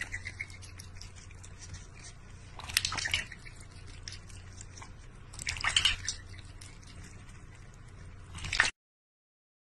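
Water splashing and sloshing in a large stainless steel bowl as a cat dips into it, in bursts about three seconds apart over a faint low hum. It cuts off suddenly near the end.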